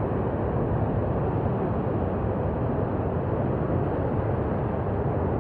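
Water rushing steadily through a concrete spillway, a constant low rush with no breaks.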